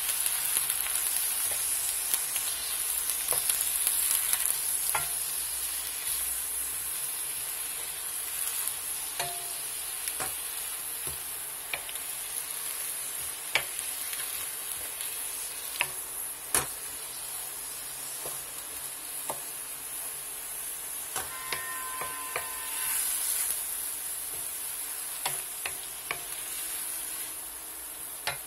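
Mixed vegetables and mushrooms sautéing in butter in a nonstick pan, a steady high sizzle, loudest in the first few seconds, while a wooden spatula stirs and tosses them, with scattered clicks of the spatula against the pan.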